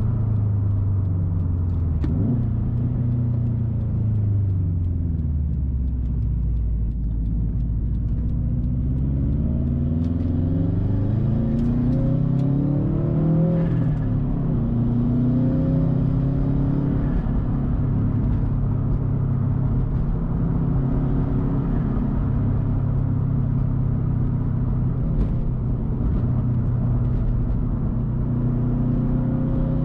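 2013 Subaru WRX STI's turbocharged 2.5-litre flat-four engine running through a titanium Tomei turbo-back exhaust while driving. The revs fall over the first few seconds and stay low, climb from about ten seconds in, dip briefly, then hold fairly steady.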